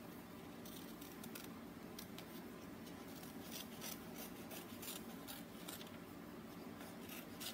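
Scissors snipping through paper in short, irregularly spaced cuts.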